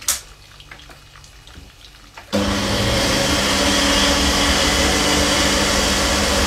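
A sharp click, then about two seconds in a personal bullet-style blender starts and runs steadily while its cup is pressed down on the base, pureeing cooked spiced peas into mushy peas.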